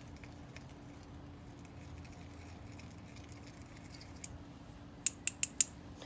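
Faint scraping of a pencil reamer deburring the inside edge of a freshly cut copper refrigerant tube, then four quick, sharp clicks near the end.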